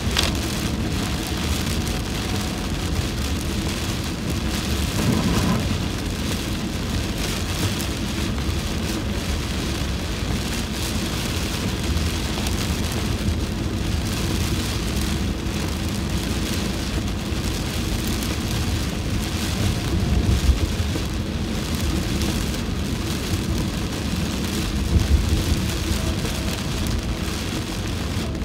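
Heavy rain pelting a car's windshield and roof, heard from inside the moving car as a steady, loud hiss over the low rumble of the road. Two brief louder thumps come in the second half.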